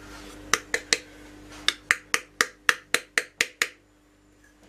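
Plastic measuring spoon tapped repeatedly to knock cornflour out into a bowl of meringue: three light clicks, then after a short pause about nine quicker ones, about four a second.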